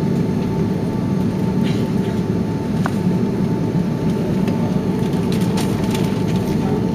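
Cabin noise inside an Airbus A330-200 airliner over the wing, its jet engines running during pushback and taxi: a steady low rumble with a thin constant whine above it. There is a small tick about three seconds in.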